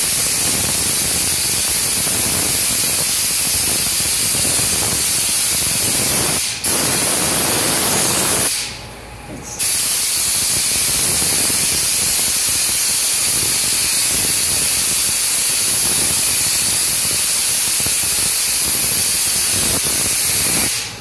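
Compressed-air spray gun spraying bed liner with a steady, loud hiss. It cuts out briefly about six and a half seconds in, again for about a second near the nine-second mark, and stops near the end.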